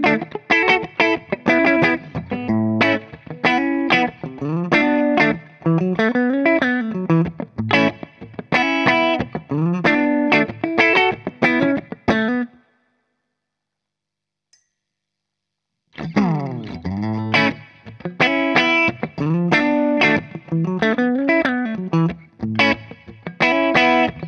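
Clean electric guitar riff on a Gibson Les Paul through the AmS Tornado 20, a 20-watt valve amp head with two EL84 power valves, with a little reverb. The riff breaks off about halfway for a few seconds of silence, then starts over. This is a test of the amp's bright switch, which adds or takes away treble.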